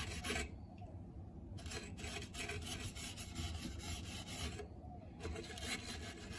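Stiff-bristled brush scrubbing a dirty window frame track with quick back-and-forth rasping strokes, broken by two short pauses.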